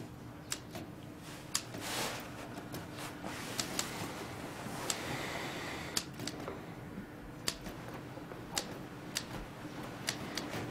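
Typewriter keys struck slowly and unevenly, a sharp click every half second or so with gaps, over a faint steady room hum.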